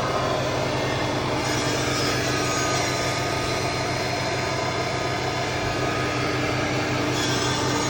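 Mercedes GLK 350's 3.5-litre V6 running steadily at idle, just after new spark plugs and an ignition coil were fitted to cure a misfire on cylinder 2.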